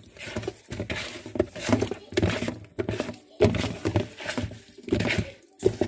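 A hand mixing raw chicken pieces in a wet liquid marinade in a bowl: irregular wet squelches and slaps as the meat is squeezed and turned.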